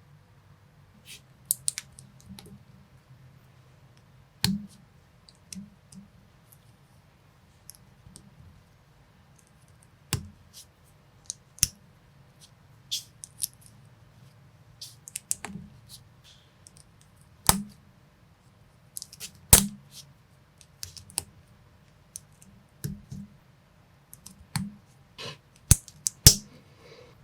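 Small plastic building bricks and minifigure parts being handled and pressed together: irregular sharp clicks and snaps, a few much louder than the rest, over a faint low hum.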